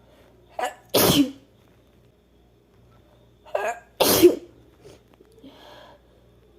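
A woman sneezing twice, about three seconds apart, each sneeze a short sharp intake of breath followed by a loud burst.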